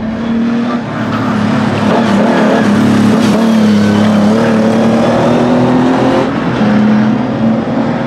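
Racing Austin-Healey 3000 MkII's straight-six engine running hard on the track, its pitch shifting up and down a few times.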